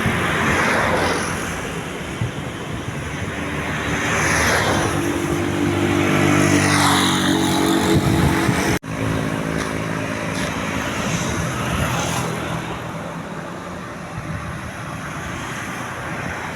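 Large vehicles, buses among them, passing close by on a road: engines running and tyres hissing, swelling and fading as each goes past. The sound breaks off for an instant about nine seconds in, then traffic noise continues.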